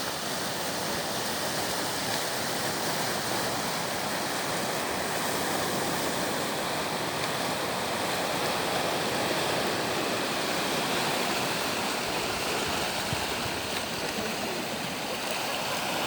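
Sea waves washing in: a steady rush of surf with no single crash standing out.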